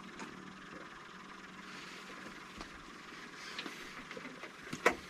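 Faint steady hiss with a low hum underneath, and a few sharp clicks and knocks near the end.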